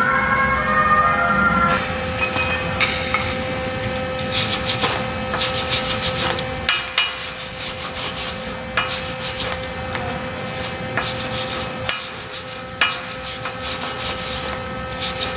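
Wire brush scrubbing a fresh weld on a steel post, irregular scratchy strokes with a few sharp clicks, over a steady hum. A few ringing tones fade out in the first two seconds.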